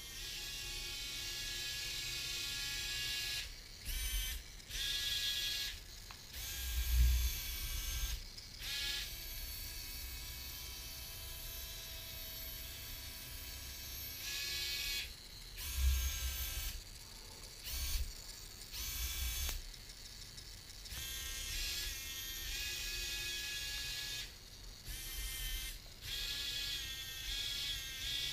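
Small geared DC motors of a tracked Arduino robot whining as it drives and turns, starting and stopping in short runs, the pitch sometimes gliding up or down. A couple of low thumps stand out, about 7 and 16 seconds in.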